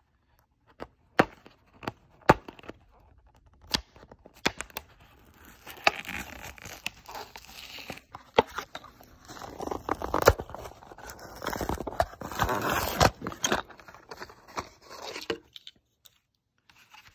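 A Hot Wheels short-card blister pack torn open by hand. A few sharp clicks and cracks of the plastic blister come first, then long stretches of cardboard tearing and plastic crinkling, which stop shortly before the end.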